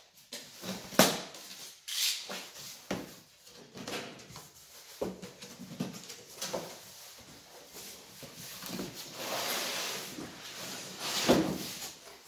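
A cardboard carton being unpacked: sharp clicks and snaps as the plastic strapping is cut, then cardboard flaps rustling and scraping as the box is opened and tilted over on a wooden bench. The loudest knocks come about a second in and near the end.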